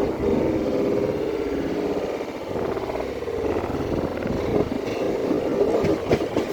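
Passenger train running, heard from on board: a steady rumble, with sharp wheel knocks on the rail joints near the end.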